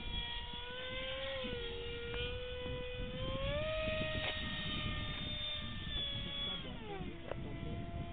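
Electric RC plane's motor and propeller whining in flight, a steady pitched note that climbs about a third of the way in and drops steeply near the end.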